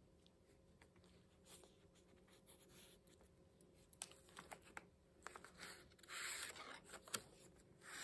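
Faint handling of a handmade paper journal: small taps and clicks as pages and tags are touched, and a page turning with a short paper rustle a little past the middle.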